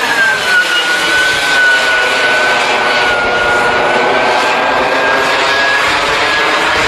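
Radio-controlled delta-wing model jet's engine whining steadily in flight. The whine drops in pitch over about the first second, holds level, then slowly climbs again toward the end.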